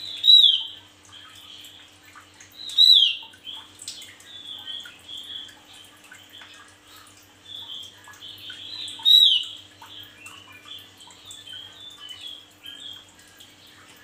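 Male Javan grey-throated white-eye singing actively: a steady run of soft, high twittering notes, broken by three much louder calls that fall in pitch, one near the start, one about three seconds in and one about nine seconds in.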